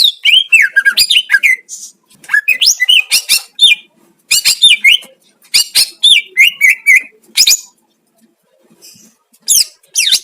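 Green leafbird (cucak ijo) singing in quick phrases of rapid, sweeping whistles and chirps, with short pauses between phrases and a longer pause a little past the middle.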